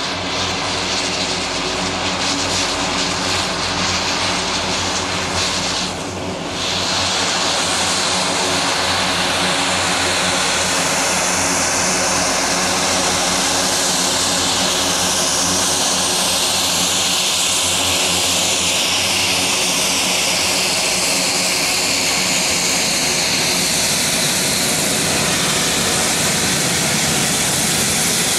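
Twin Garrett TPE331 turboprops of a Dornier 228-212 taxiing: a steady propeller drone with a high turbine whine that slowly shifts in pitch. It dips briefly and then grows a little louder about seven seconds in.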